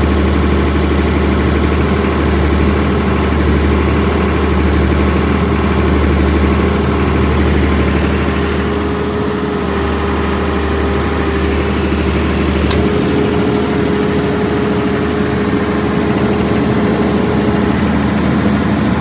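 Nippon Sharyo diesel generator set running steadily at constant speed, a loud even engine hum. A single brief click about two-thirds of the way in.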